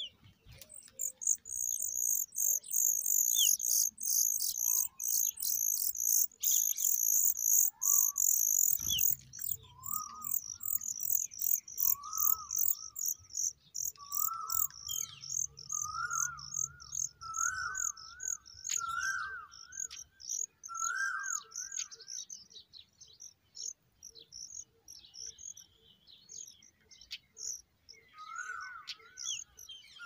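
Familiar chat nestlings begging: rapid, very high-pitched chirping, most intense for the first several seconds and thinner after. From about a third of the way in, a lower bird call that rises then falls repeats every second or two.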